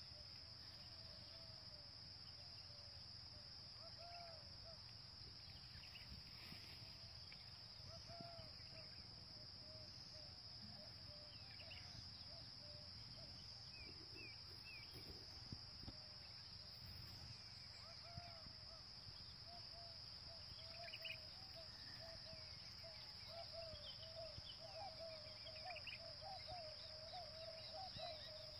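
Faint outdoor ambience: a steady high insect drone, with a run of short repeated chirping calls that grows busier toward the end and a few higher bird chirps.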